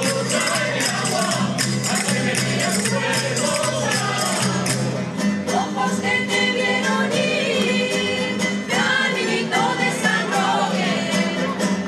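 Traditional folk music. For the first five seconds or so, a tambourine is shaken in a quick steady rhythm over a held low accompaniment. After that, a choir of women's voices sings together.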